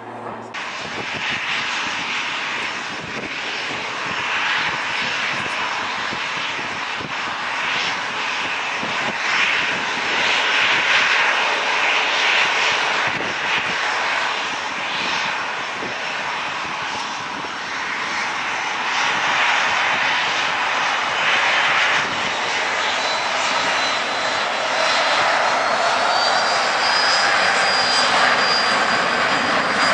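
Airbus A330-243 airliner's two Rolls-Royce Trent 700 turbofan engines at take-off power through the take-off roll and lift-off, the engine noise slowly growing louder, with a thin high whine rising slightly late on.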